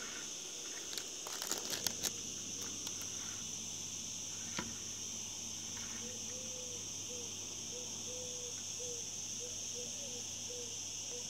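Steady, high-pitched insect chorus. A few clicks and rustles of handling come about one to two seconds in, and a faint run of short, quick repeated notes starts about halfway through.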